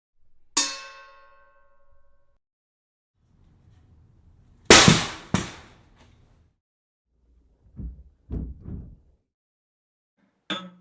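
A string of separate metal impact sound effects. First comes a ringing metal clang that dies away over a second or so, then two loud, bright crashing hits close together, three duller clunks, and a short clank near the end.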